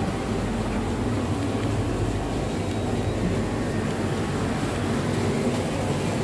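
Steady low mechanical hum and rumble of background machinery, unbroken and even in level.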